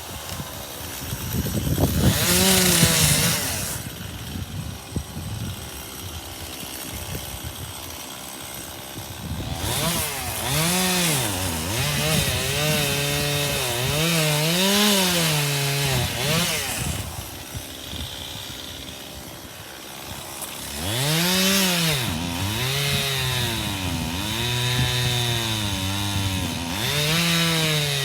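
Two-stroke chainsaw revving up and down, its pitch rising and falling repeatedly as the throttle is worked, likely cutting ash wood. It gives a brief loud rev about two seconds in, runs quieter for several seconds, then revs up and down again and again from about ten seconds in.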